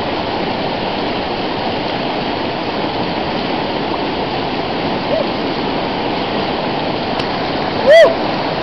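Fast mountain river rushing over rapids, a steady whitewater noise. Near the end comes one short, loud yell that rises and falls in pitch.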